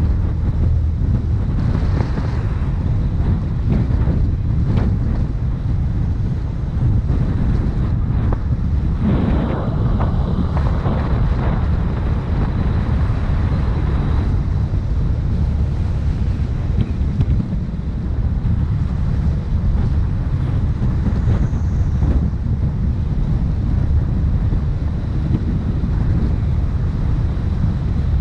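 Wind buffeting the microphone: a steady low rumble throughout.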